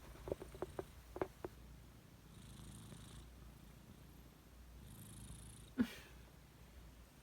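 Persian cat's loud, heavy breathing, close to snoring: two slow breaths a few seconds apart. A few quick clicks come in the first second and a half, and one sharp click near six seconds.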